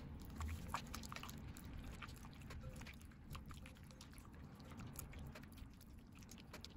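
Faint, irregular wet squelching and small clicks of a hand squeezing soft butter into a milky egg-and-sugar mixture in a glass bowl.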